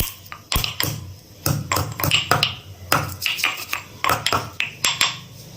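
Black peppercorns and other whole spices being pounded with a pestle in a mortar: a quick, uneven run of sharp knocks, about three or four a second.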